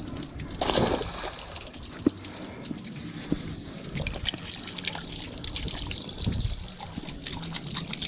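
Water sloshing and trickling with many small splashes, and a louder rush about a second in.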